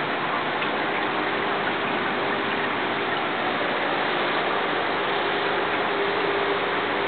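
Aquarium aeration: streams of air bubbles from air stones rising and breaking at the water surface, a steady hiss like running water, with a faint steady hum beneath.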